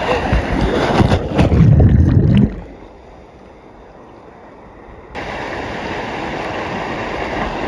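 Rushing, splashing water, loud with sharp splashes for the first two and a half seconds, then dropping off sharply before a steady rush of water returns about five seconds in.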